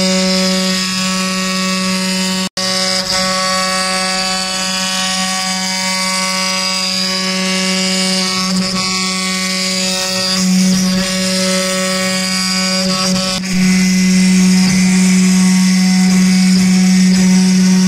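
CNC wood-carving machine's spindle running at a steady whine as its bit cuts into wood. The sound drops out for an instant about two and a half seconds in and gets louder for the last few seconds.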